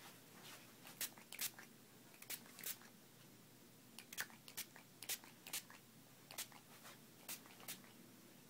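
A pump-spray perfume bottle being spritzed repeatedly: about a dozen quick, short hisses in irregular runs, a few close pairs a fraction of a second apart.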